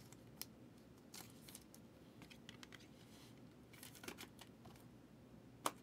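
Near silence with faint scattered clicks and rustles of a trading card and its plastic sleeve being handled, and one sharper click near the end.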